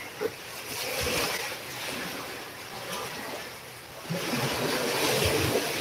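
Steady rushing noise of typhoon rain and wind, sounding like surf, with a few soft knocks.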